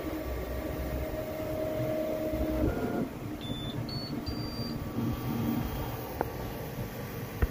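Flashforge Adventurer 5M Pro 3D printer's stepper motors whine steadily in two tones over its fan noise while the print head moves at the end of the print. About three and a half seconds in come three short high beeps, each higher than the last: the printer signalling the print is finished. Two sharp clicks follow near the end.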